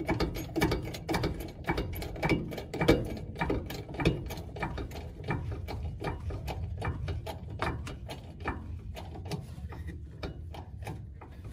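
Hydraulic trolley jack being pumped, its handle clicking and creaking in a steady rhythm of a little under two strokes a second as it raises a mobile home axle under load.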